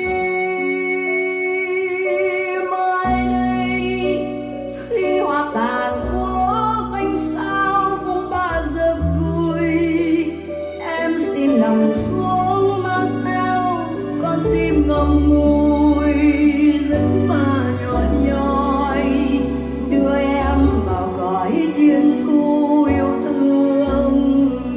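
Recorded Vietnamese ballad played through a 300B single-ended tube amplifier and Q Acoustics 3050 floor-standing speakers. Sustained accompaniment and bass notes open it, and a wavering melody line comes in about five seconds in.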